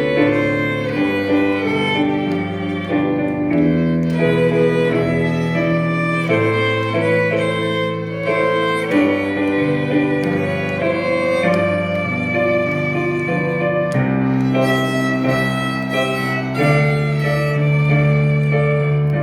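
Small string ensemble playing a song arrangement, a violin melody over held low notes with a plucked accompaniment.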